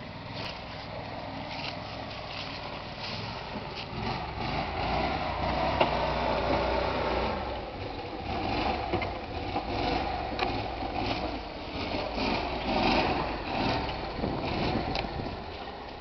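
Engine of a freshly rebuilt 1996 Max IV 600-T six-wheel amphibious ATV running under load as it climbs over dirt piles. It grows louder about four seconds in, then swells and eases repeatedly.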